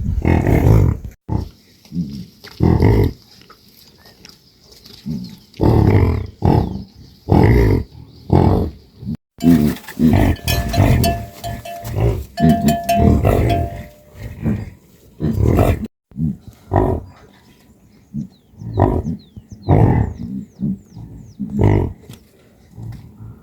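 Livestock calling: repeated loud, low calls in irregular bursts, a second or two apart.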